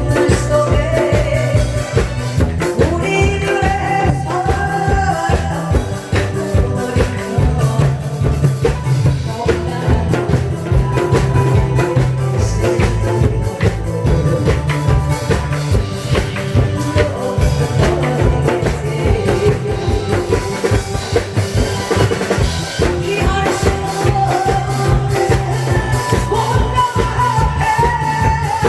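Loud, upbeat song playing over a sound system, with a steady drum-kit beat and melody on top.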